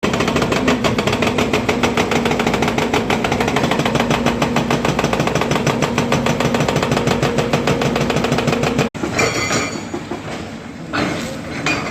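Volvo excavator's hydraulic breaker hammer pounding with a fast, even run of blows over the machine's steady engine drone. About nine seconds in the hammering cuts off abruptly, leaving quieter engine noise with a few scattered knocks.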